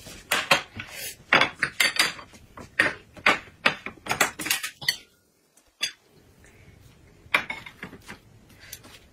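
Chopsticks and plates clattering on a dining table: a quick run of clinks and knocks, then, after a short break, a few scattered ones.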